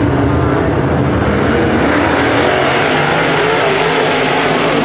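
Pack of dirt super late model race cars running their V8 engines at racing speed around the track. The sound grows brighter from about halfway as a car comes past close by.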